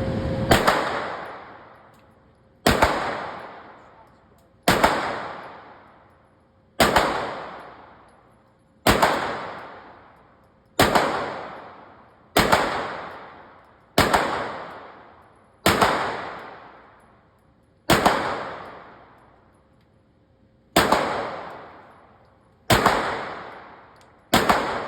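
Firearm shots fired one at a time, about thirteen in a slow, steady string roughly every two seconds. Each shot is sharp and loud and trails off in a long echo.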